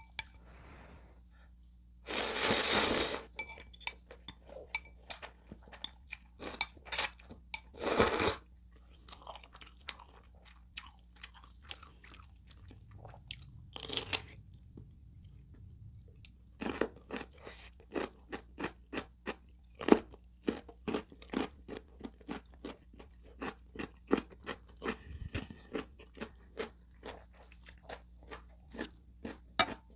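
Close-miked mouth sounds of a person eating instant ramen noodles and a side dish: a few longer loud slurps in the first half, then steady wet chewing at about two chews a second.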